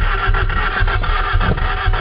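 Toyota Corolla DX's carburetted engine being cranked over by the starter motor in −10 °C cold, with an even rasping pulse about four times a second. It turns over without catching: a hard cold start.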